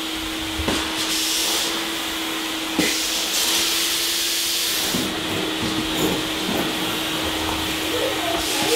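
Wet vacuum sucking up flood water: a steady motor hum under a rushing suction hiss that swells and drops several times, with a few knocks, the sharpest about three seconds in.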